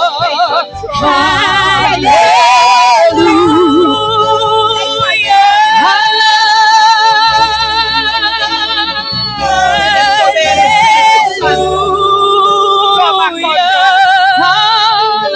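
Worship singing with long held notes and a wide vibrato, over a sustained low band or keyboard accompaniment.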